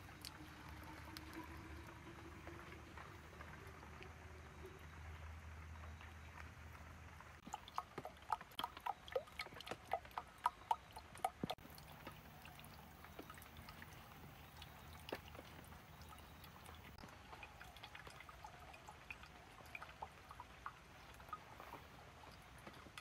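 Filtered water dripping from the bottom of a bamboo-tube water filter into a small clay pot holding water, with a quick run of plinking drops about eight seconds in and sparser drips after.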